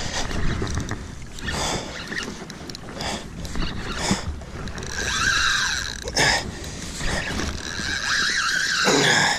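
Spinning reel's drag buzzing in two spells, about five seconds in and again near the end, as a hooked snapper pulls line off it, over steady wind and water noise with scattered knocks against the kayak.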